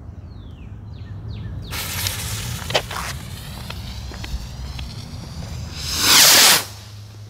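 Circle of Heat stick rocket firework: the lit fuse hisses and sputters, then about six seconds in the rocket launches from its tube with a loud whoosh lasting about half a second.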